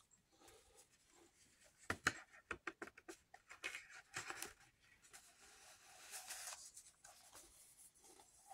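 Faint handling of a DVD case and its cardboard slipcover: a quick run of small clicks and taps about two seconds in, then a soft rustle around six seconds in.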